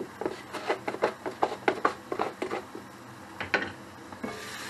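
A quick run of small clicks and knocks of kitchen handling beside the pan, about four or five a second, then a pause and a couple more. Near the end the glass lid comes off the frying pan and a steady hiss of the vegetables simmering and steaming opens up.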